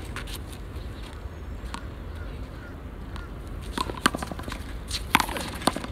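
Handball rally: a few sharp smacks of a gloved hand striking the rubber ball and the ball hitting the concrete wall and court, clustered in the second half.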